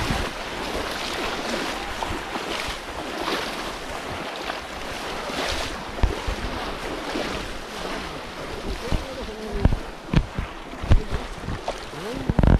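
Shallow muddy floodwater splashing and sloshing as people wade through it and plunge bamboo polo basket traps down into it, with wind buffeting the microphone. Several sharp low knocks come in the second half, closer together near the end.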